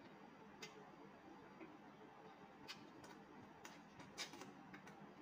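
Faint, irregular clicks and smacks of a person eating shrimp and rice by hand and chewing, about seven in all, the loudest a little after four seconds, over near-silent room tone.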